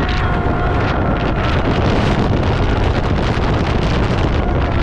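Loud, steady wind rushing over the microphone on a moving roller coaster, with the rumble of the train under it. Faint whistling tones come through near the start.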